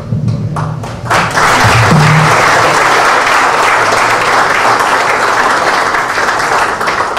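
Audience applauding: a few scattered claps, then about a second in the applause swells into steady clapping that eases slightly near the end.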